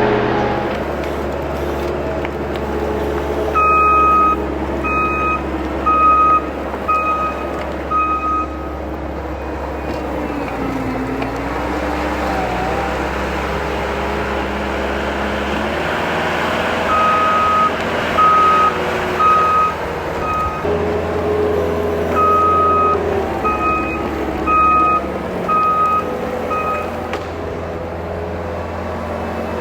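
A heavy earthmoving machine's diesel engine running steadily, its pitch shifting a few times with load. Its backup alarm sounds in three runs of four or five evenly spaced beeps at one pitch, meaning the machine is reversing.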